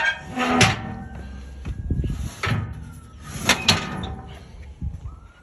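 Metal RV camper step assembly being slid into place by hand, with several loud clanks and rattles that ring briefly, the step fitting past its newly replaced bolts. A faint siren wails in the background.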